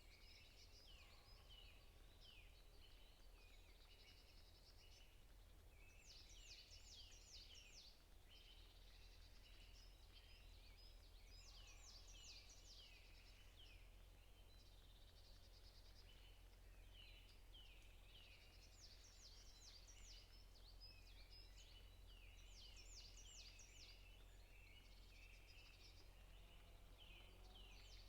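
Faint forest birds singing: runs of quick, high, downward-sweeping notes come in bursts every few seconds. A steady low hum runs underneath.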